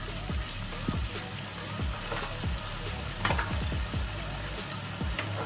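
Chopped onions, capsicum and green chillies frying in an oiled non-stick wok, with red chilli sauce and soy sauce just added: a steady sizzle full of small crackles and pops.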